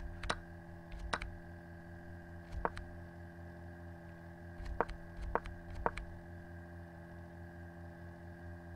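About seven single sharp clicks at uneven spacing, from stepping through chess moves on a computer, over a steady electrical hum with a faint high tone.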